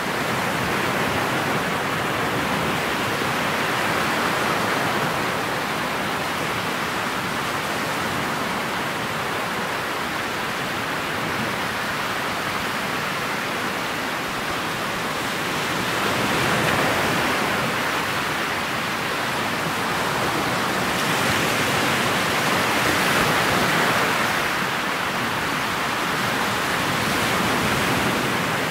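Steady rushing noise of a motorboat under way: water washing along the hull and wind over the boat, swelling slightly twice in the second half.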